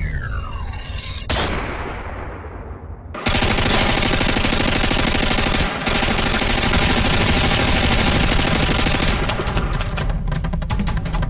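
A falling swoosh, then after a short lull a sudden dense burst of rapid gunfire lasting several seconds. Near the end it breaks into quick separate shots, many a second.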